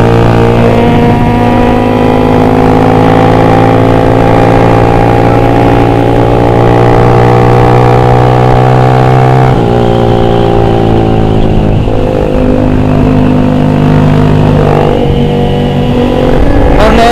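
Motorcycle engine running at a steady cruise, heard on board the bike. The note holds nearly one pitch and rises slowly, then shifts about ten seconds in and twice more near the end as the throttle changes.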